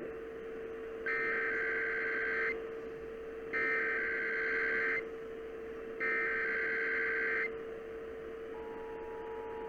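Emergency Alert System SAME header: three bursts of warbling data tones, each about a second and a half long and about a second apart. Near the end the steady two-tone EAS attention signal starts. A steady hum runs underneath throughout.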